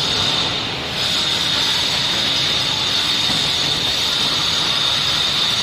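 Double-head aluminium cutting saw running with its blades spinning: a steady whir with a constant high whine that drops briefly just before a second in, then holds steady.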